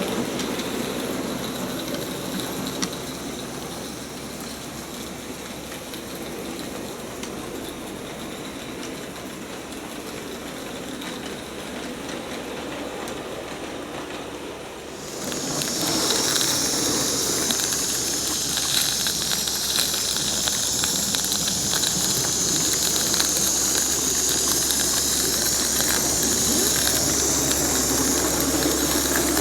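Model live steam locomotive, a 16mm-scale Roundhouse Garratt, running with steady steam hissing; about halfway through the hiss gets suddenly louder and higher and stays so.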